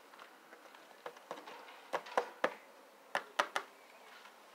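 Irregular light taps and clicks, about eight in small clusters, from fingers handling foil tape laid over hardened fiberglass resin.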